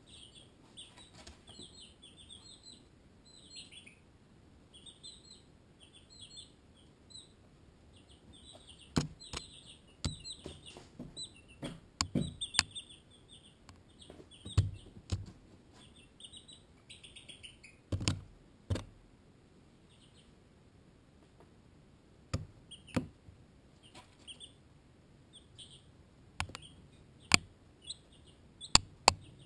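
Baby chicks (Barred Rock and Ameraucana) peeping in short high clusters, broken by a dozen or so sharp taps as chicks peck at the camera. The taps are the loudest sounds and come at uneven moments.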